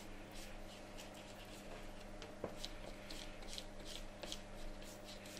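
Faint, soft scratchy strokes of a silicone pastry brush spreading olive oil over thin parsnip slices, with fingers shifting the slices on a wooden cutting board and a light tap about two and a half seconds in.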